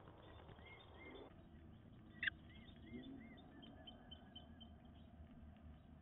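Faint bird chirps: short arched notes in twos and threes, then a run of quick high ticks, over a low steady hiss. A single sharp click a little over two seconds in is the loudest sound.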